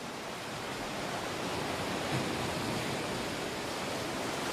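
Fast-flowing floodwater rushing, a steady even noise that swells slightly about a second in, played through a television's speaker.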